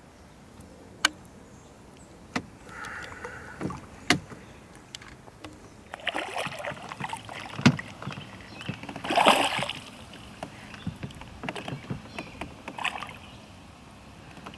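Knocks and clatter of gear being handled in a small boat: a few sharp single knocks, then a stretch of rustling and clattering about halfway through, loudest a little after the middle.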